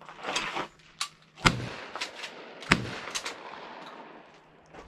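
Shotguns firing at clay targets: two loud shots about a second and a quarter apart, with a few fainter sharp cracks around them.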